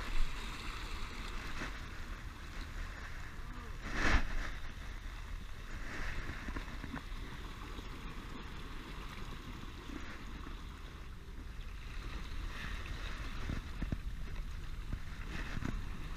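Steady wash of ocean water and wind, with a short louder rustle about four seconds in.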